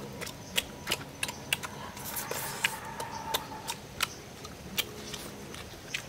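Mouth sounds of eating grilled fish by hand: sharp, irregular lip smacks and chewing clicks, a few a second.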